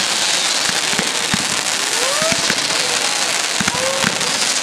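Fireworks display: dense crackling with many sharp bangs, and several short whistles that rise and fall in pitch.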